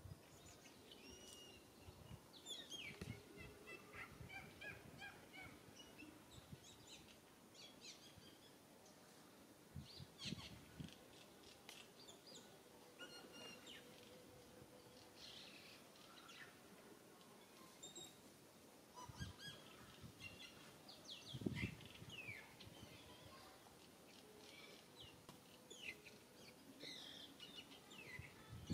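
Faint forest ambience: scattered short bird chirps and calls, with a few low thumps, the loudest about two-thirds of the way in.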